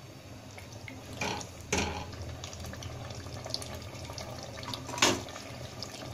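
Chicken in a tomato-yogurt gravy bubbling and sizzling in an aluminium pot, with a few sharp knocks of the spatula against the pot.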